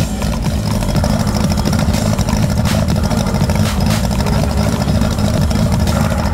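Off-road buggy engine idling steadily while the buggy stands still.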